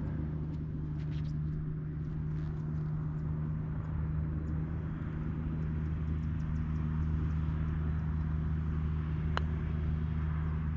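A vehicle running steadily: a low, even hum with road noise and a few light ticks, and one sharp click about nine seconds in.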